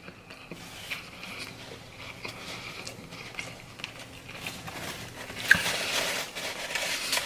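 A person chewing soft chicken tenders close to the microphone: soft wet mouth sounds with small clicks, louder over the last two seconds.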